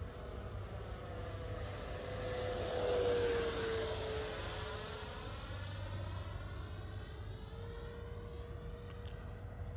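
RC model jet flying past overhead, its whine falling in pitch as it goes by. It is loudest about three seconds in, then fades to a steady, more distant whine.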